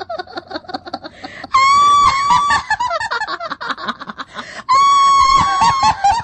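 Ghostly horror-effect cackling laugh: a run of rapid 'ha-ha' pulses, then twice a long shrill high note that breaks into fast cackling.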